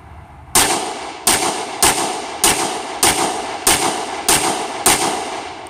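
Eight .45 ACP shots from a stainless semi-automatic pistol, fired steadily about 0.6 s apart, each with a brief echo. The pistol empties its magazine and cycles every round without a malfunction, running lightweight Ruger ARX polymer-fluted rounds.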